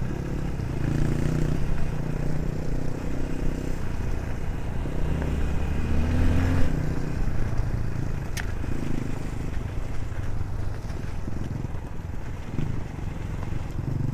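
AVETA VTM 250 LX motorcycle engine running under way, its pitch rising and falling as the throttle changes. There is one sharp click about eight seconds in.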